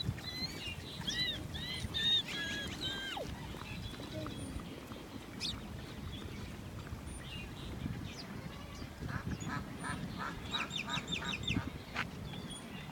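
Ducks calling: a string of arched calls in the first three seconds, then a quick run of short calls, about four a second, around ten seconds in.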